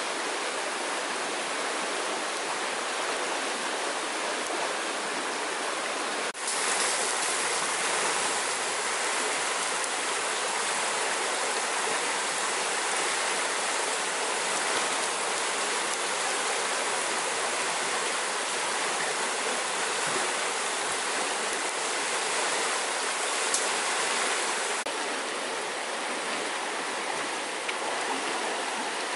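Fast-flowing muddy stream rushing steadily, a continuous hiss of running water; it dips briefly about six seconds in and turns a little duller near the end.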